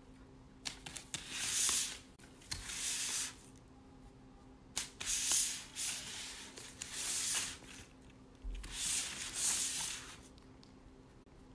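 Crinkled foil and paper fast-food wrapper rustling and crackling as a cat paws and tugs at it, in about four bursts of a second or two each.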